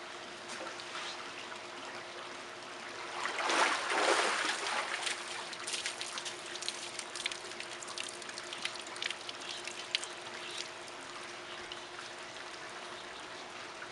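Swimming-pool water splashing and lapping as a golden retriever swims. There is a louder stretch of splashing about three and a half seconds in, then scattered small splashes, over a faint steady hum.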